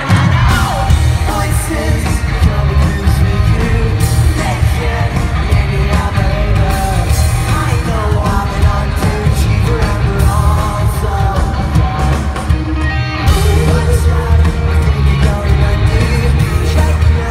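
Live pop-punk band playing loudly: electric guitars, bass and drums with a lead vocal. The band drops out briefly about thirteen seconds in, then comes back in.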